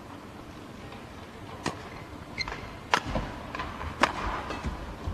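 Badminton rally: sharp racket strikes on the shuttlecock about once a second, starting about a second and a half in, with fainter knocks between them.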